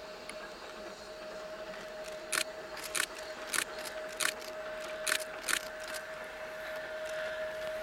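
Narrow-gauge steam locomotive working steam as it approaches: from about two seconds in, six sharp exhaust beats come roughly every half second to a second, over a steady high tone.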